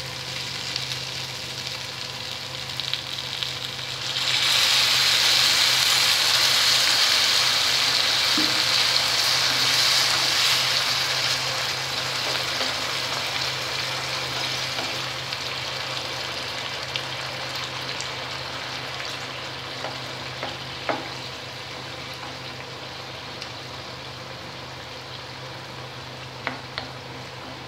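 Water poured into a hot pan of fried rice, spices and fish head sizzles loudly from about four seconds in, then slowly dies down. A spatula knocks against the pan a few times near the end.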